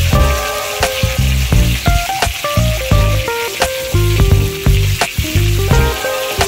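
Potato chunks sizzling as they fry in hot oil in a steel kadai, turned now and then with a wooden spatula. Background music plays along with the sizzle.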